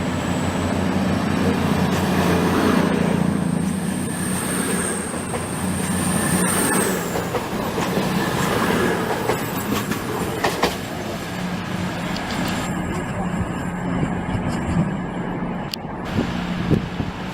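Train running through the station: a steady low hum with a thin high-pitched wheel squeal that bends down and stops about seven seconds in, and a few sharp clicks from the wheels over the rail joints.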